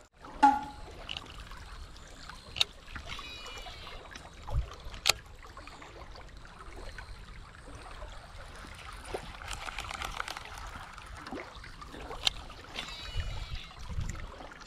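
Steady rush of water flowing through a small channel, with a few sharp clicks of fishing tackle being handled.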